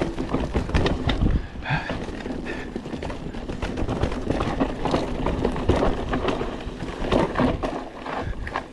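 Mountain bike rattling over a rocky trail descent: a fast, irregular run of knocks and clatters from the tyres and frame striking rocks, over a steady rush of riding noise.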